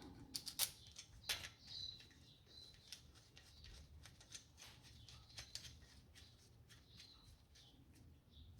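Sharp clicks and taps of small parts being handled, several loud ones in the first second and a half and fainter ones after, with birds chirping faintly.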